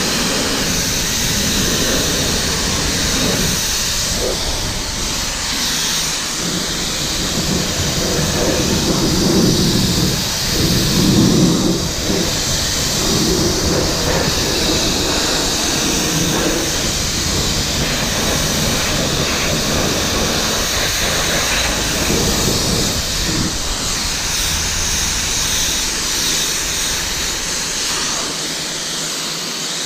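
Kranzle 1122TST electric pressure washer running with the spray gun's trigger held, its water jet hissing steadily against the car's body as road salt and grime are rinsed off. The spray grows louder for a moment about ten seconds in.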